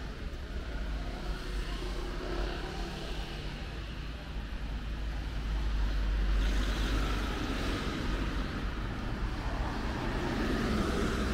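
A vehicle engine running with outdoor background noise, a steady low rumble that grows louder about six seconds in.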